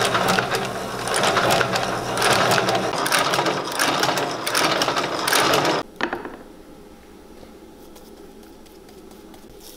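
Blake (McKay) sole-stitching machine running, a rapid steady clatter as it stitches the boot's sole through to the insole. It stops abruptly about six seconds in, leaving only a faint low background.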